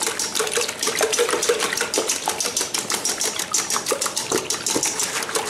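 Wire whisk beating eggs and milk in a stainless steel mixing bowl: rapid, even clicking of the wires against the steel, with the wet slosh of the liquid.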